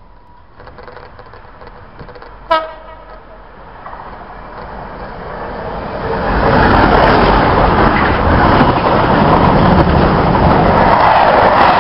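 Freightliner class 66 diesel locomotive sounds one short horn toot about two and a half seconds in, then draws up and passes close by hauling a container freight train. The engine and the wagons' wheels grow louder until about six seconds in and then stay loud and steady.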